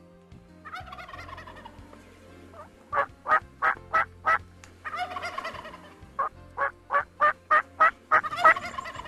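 Merriam's turkey gobbling three times, each gobble a rattling call that falls in pitch. Between the gobbles come two runs of short, evenly spaced yelps at about three a second.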